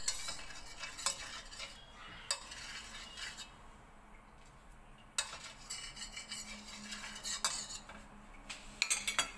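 A metal spoon scraping and clinking against a stainless steel frying pan, in short bouts with quieter pauses between.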